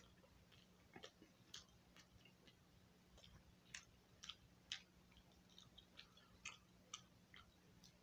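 Faint, irregular clicks and smacks of a person chewing a mouthful of burger, over a low steady hum.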